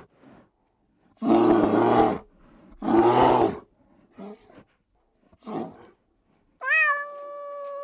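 A series of loud, harsh animal calls, each about a second long, with weaker short ones after them. Near the end a domestic cat starts a long, clear meow.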